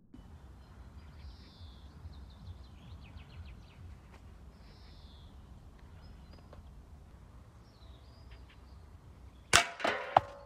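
A 5.5 mm air gun shot at a small solar panel: one loud sharp crack about nine and a half seconds in, followed within half a second by two smaller impacts and a short ringing. Before it, only a faint outdoor background with a few high chirps.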